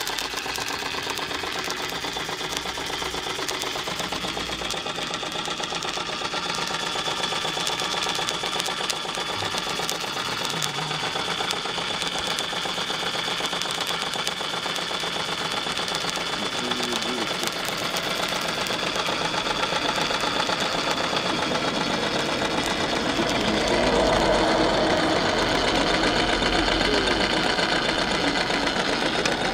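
Märklin 4122/11 live-steam toy engine running fast, its small cylinder and flywheel making a rapid, even mechanical beat. It gets somewhat louder in the last few seconds.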